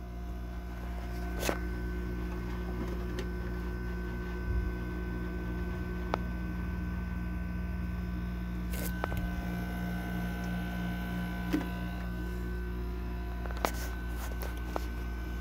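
Haier 5,000 BTU window air conditioner running with its compressor on: a steady low hum under the rush of the fan's air, with a few faint clicks scattered through. The compressor has built head pressure and the unit is blowing ice cold.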